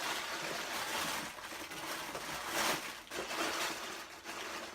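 Crinkling and rustling of plastic-wrapped fortune cookies being rummaged through in a box, in several bursts of handling.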